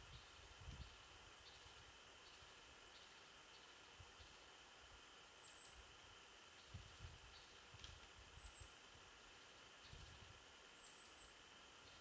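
Very faint winter-forest ambience: a bird repeats a thin, high-pitched call about twice a second, with a few louder chirps, over soft gusts of wind.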